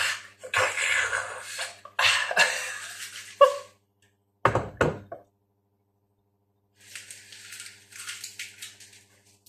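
Handling noises: rustling and scraping of packaging, with a dull thunk about four and a half seconds in and softer rustling near the end.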